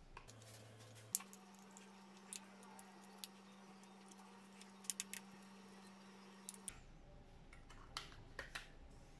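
Scattered sharp clicks and snaps of a portable external hard drive's aluminium-and-plastic casing being pried apart with a metal pry tool and a screwdriver, the loudest about a second in.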